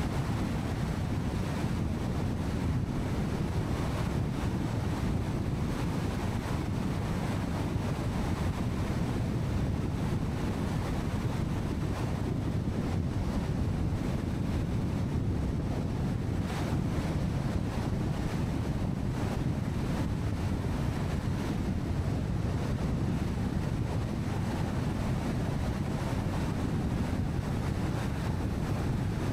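Steady road and wind noise from a car driving along a highway: a constant low rumble with no changes.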